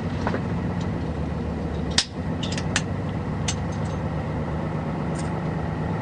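Bus engine running steadily, heard from inside the passenger cabin, with a sharp click about two seconds in and a few small ticks after it.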